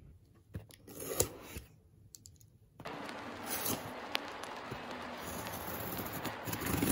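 Cardboard shipping box being handled and its packing tape scraped and slit along the seam: light scraping and rustling with scattered clicks, including a sharp click a little past the middle. A brief rustle and a few clicks of handling come about a second in.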